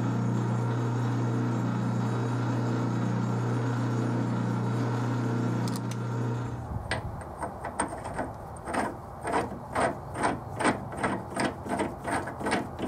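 A 12-inch Atlas metal lathe running steadily with a low motor hum while cutting an internal thread in a hardened grade 8 bolt. About six seconds in the lathe stops and a run of short metallic clicks follows, about three a second, as the part is handled.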